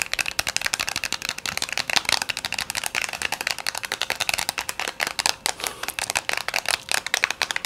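Fast ASMR tapping: a rapid, uneven stream of light clicks, many a second, without a break.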